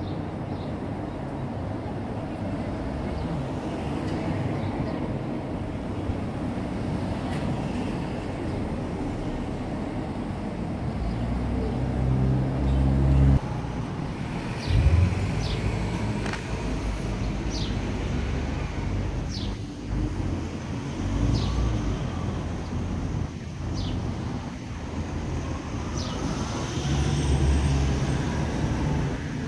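Town-centre road traffic: a steady low rumble of cars driving along the street, with one vehicle louder from about eleven to thirteen seconds in and a sudden thump shortly after. Short high chirps come every second or two through the second half.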